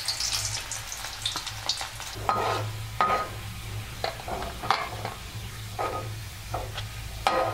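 Sliced garlic sizzling in hot oil in a pan, with a spatula stirring and scraping the pan every second or so, some strokes with a short ringing tone.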